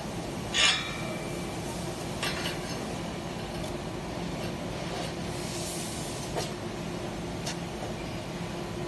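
A few sharp metallic knocks of steel on steel, the first one ringing briefly, over a steady background hum.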